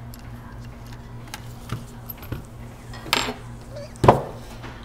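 Metal tweezers and parts clinking on a bench, with a clatter about three seconds in and a louder metal knock with a short ring about four seconds in, as the separated halves of an iPhone XS logic board are lifted off a heated holder and metal fixtures are set down. A steady low hum runs underneath.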